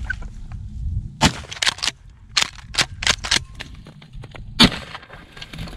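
Shotgun fired twice, about three and a half seconds apart, with a run of lighter sharp clicks and snaps in between.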